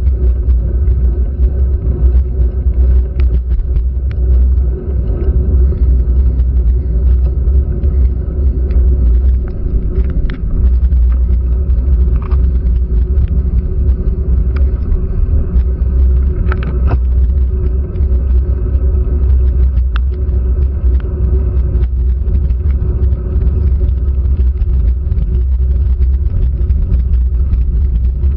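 Steady, muffled low rumble of wind and road noise picked up by a GoPro in its waterproof housing on a bicycle climbing a wet road in the rain, with a faint steady hum. Scattered short clicks run through it, which fit raindrops hitting the housing.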